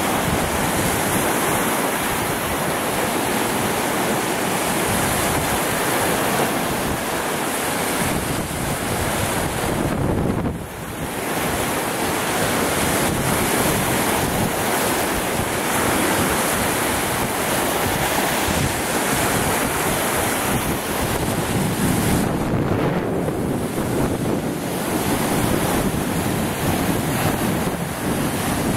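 Lake Superior waves breaking and washing over the bare rock shoreline in a steady surf, with wind buffeting the microphone.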